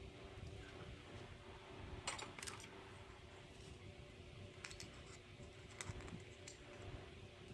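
Faint light metallic clicks and taps of a Schlage Primus lock cylinder and its small parts being handled while it is taken apart: a short cluster about two seconds in, then a few single clicks later.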